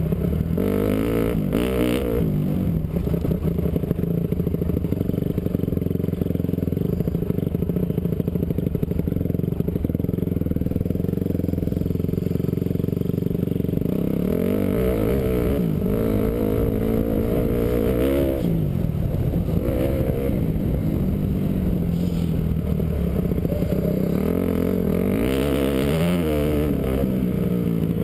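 Honda CRF450 single-cylinder four-stroke motocross engine recorded onboard while riding, revs steadier for a stretch in the first half, then rising and falling repeatedly through throttle changes.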